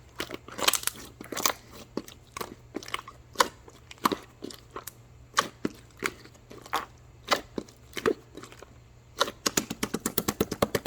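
Irregular sharp clicks and taps, one or two a second, turning into a quick run of them near the end, over a faint steady hum.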